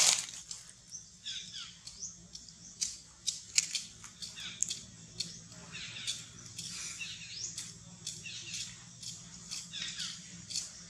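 Monkey calls from a macaque mother and baby: a loud call right at the start, then short high squeaks that glide up or down, coming every second or so among scattered light clicks.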